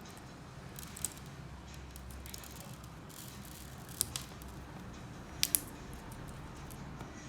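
A few sharp, high clicks over a steady low hum: one about a second in, a pair near the middle and a quick double click later on.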